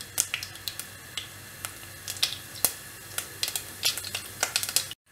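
Mustard seeds and urad dal frying in hot oil: a light sizzle with many irregular sharp pops and crackles as the mustard seeds splutter, the sign that the tempering oil is hot and the seeds are done. The sound cuts out for a moment near the end.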